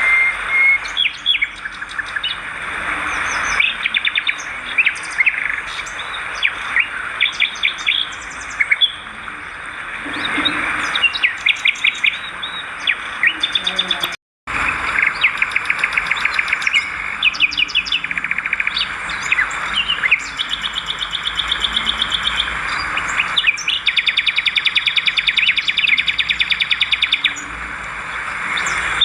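Swiftlets twittering: a busy, unbroken mix of rapid, buzzy chirps and trills. The sound cuts out completely for a moment about halfway through.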